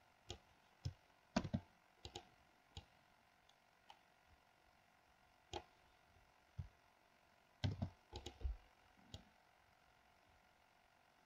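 Computer keyboard and mouse clicks: a dozen or so single taps spaced out, with a quick run of clicks about eight seconds in, over faint room tone.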